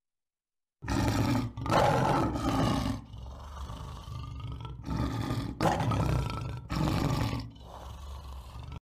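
Male lion roaring: starting about a second in, a run of loud, deep roars with quieter stretches between them, cutting off abruptly just before the end.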